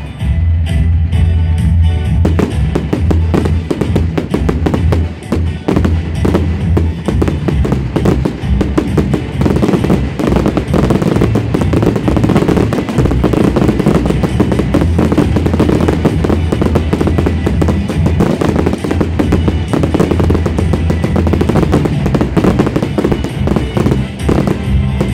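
Dense barrage of aerial firework shells bursting and crackling, many reports a second, building up about two seconds in, heard over loud music with a heavy bass.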